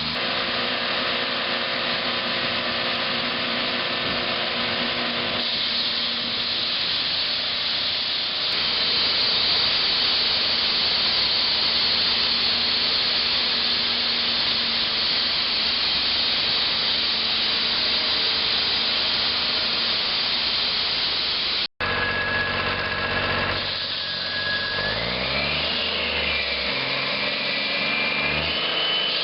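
Heavy machinery running steadily with a loud, even mechanical noise. A break about two-thirds of the way through is followed by engine tones that rise and fall in pitch.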